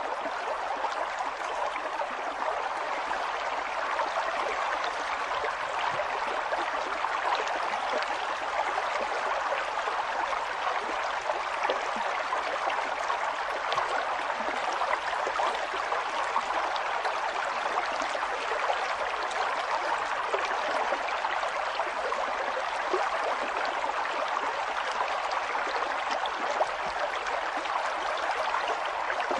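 River water flowing: a steady rush with small gurgles and splashes throughout.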